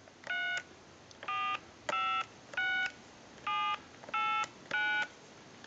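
Touch-tone (DTMF) keypad tones from a BellSouth Trimline telephone as its digits are dialed in sequence: seven short two-tone beeps, one roughly every half second to second. They show that the phone's tone dialing works.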